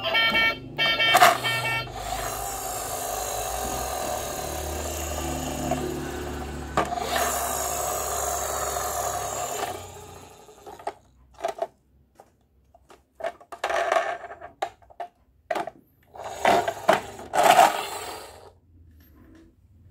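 Plastic Tayo toy bus playing its electronic sound effects after its roof buttons are pressed: a short tone, then a steady engine-like whir for about eight seconds that stops suddenly. Several short bursts of noise follow as the bus is handled and pushed along the table.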